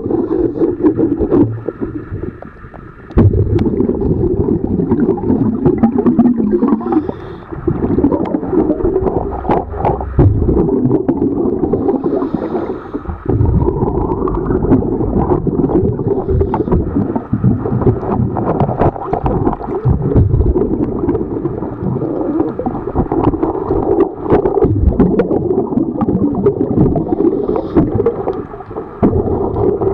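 Muffled underwater noise picked up through a waterproof camera housing: a gurgling, bubbling rumble with scattered knocks and bumps, dipping briefly a few times.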